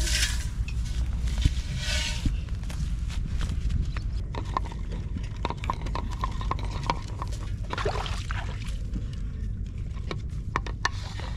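Wind rumbling on the microphone, with scattered footsteps and small knocks and scuffs on a muddy river bank. A rustle of rice plants comes in the first two seconds, and a short rushing noise about eight seconds in.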